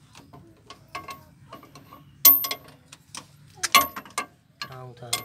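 Metal tools clicking and clinking against the differential cover bolts as a spanner loosens them: scattered sharp ticks, the loudest two about two seconds and nearly four seconds in.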